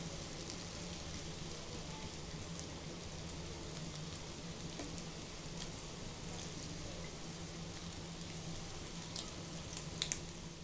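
Bread rolls deep-frying in hot oil in a pan: a steady sizzle, with a few light clicks near the end.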